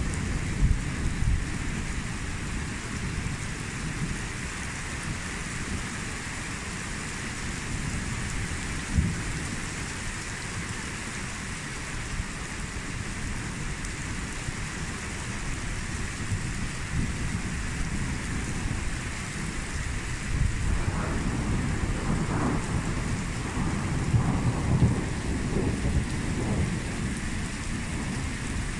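Thunderstorm: steady heavy rain hissing on pavement and roofs, with thunder rumbling low underneath. There is a short louder jolt about nine seconds in, and the rumbling swells louder in the last third.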